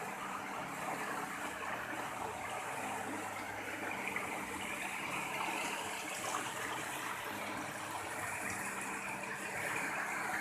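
River water rushing, a steady hiss, with a faint low hum underneath.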